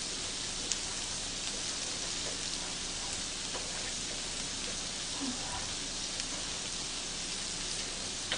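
Shrimp rolls sizzling on a hot tabletop grill plate: a steady hiss with a few small crackles.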